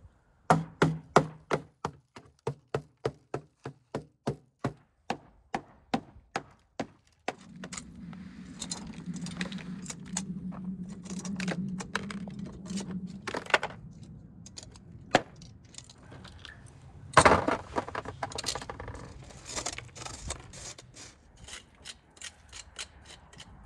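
A hammer tapping repeatedly on a baked salt crust around a whole sturgeon, about two to three knocks a second for the first seven seconds, cracking the crust. After that come scattered crunches and clicks as the salt crust is broken up and pulled away on a metal tray, with one loud knock about seventeen seconds in.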